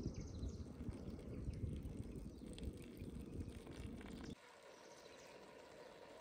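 Low, gusty wind rumble on the microphone that cuts off abruptly about four seconds in, leaving a faint, quiet outdoor hiss.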